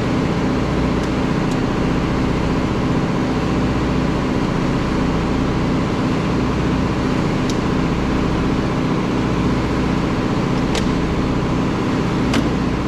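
An engine idling with a steady drone, and a few sharp clicks from work on the door panel, about 7 and 11 seconds in and twice near the end.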